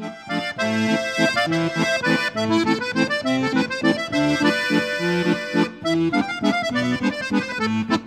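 Accordiola chromatic button accordion playing a folk tune, its melody over a regular, repeating bass-and-chord accompaniment.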